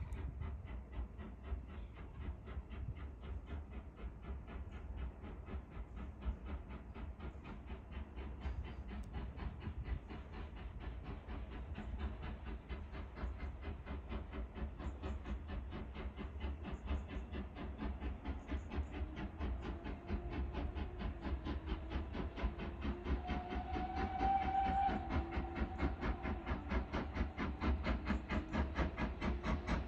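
Steam train running with a quick, even rhythm of beats, growing louder over the last third as it draws closer. A faint held tone sounds over it about two-thirds of the way through.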